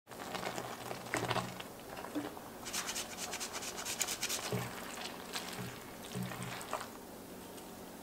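Wooden spatula stirring spaghetti through broth in a pot, with wet sloshing and scattered clicks. About three seconds in comes a quick run of rasping strokes as hard cheese is grated on a microplane grater.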